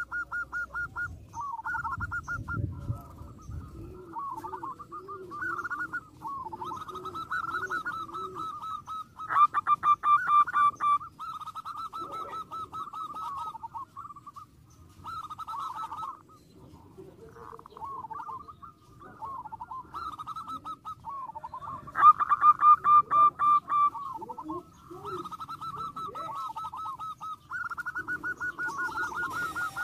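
Zebra doves (perkutut) cooing: rapid staccato runs of cooing notes that overlap almost without a break, with louder, sharper bursts about a third of the way in and again about three-quarters in. A lower, softer series of coos runs beneath them for a few seconds near the start.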